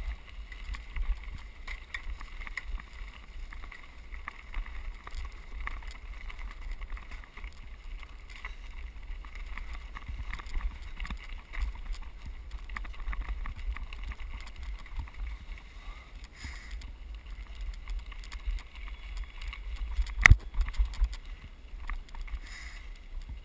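Mountain bike riding over a gravel track: a steady low rumble of wind on the microphone and tyres on gravel, with one sharp knock about twenty seconds in.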